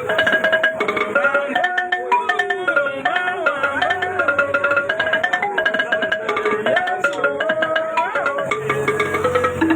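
Gbange music: a bending, gliding melody over fast, busy percussion.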